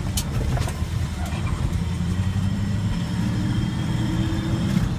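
Ford F-350's V8 running through new headers and a large semi-truck muffler, heard from inside the cab while driving: a steady low drone with hardly any exhaust note, so quiet that the engine can barely be heard.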